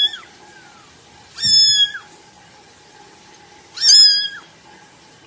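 Young kitten meowing loudly in short, high-pitched cries: one dying away at the very start, then two more about one and a half and four seconds in.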